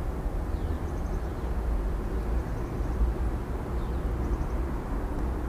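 Steady low outdoor rumble with a few faint, short high chirps in small groups.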